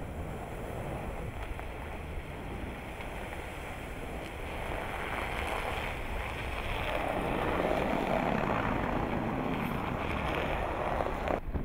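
Ram Power Wagon pickup with its 6.4-litre HEMI V8 driving through snow: engine and tyres in the snow, growing louder as the truck passes close by past the middle, with wind on the microphone. The sound changes abruptly near the end.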